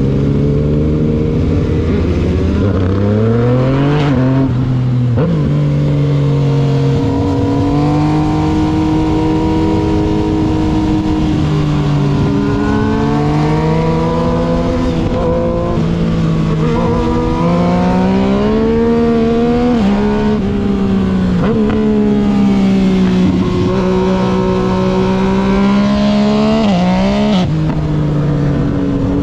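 Yamaha MT-09's inline three-cylinder engine under way: the revs climb and break sharply twice a few seconds in, quick gear changes typical of its quickshifter. The engine then holds a steady pitch, rising and falling gently with the throttle, with one more sharp change near the end.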